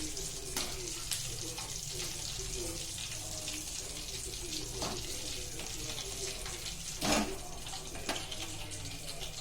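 Batter-coated chicken pieces frying in hot oil: a steady sizzle full of small crackles and pops, with a few sharper knocks, the loudest about seven seconds in.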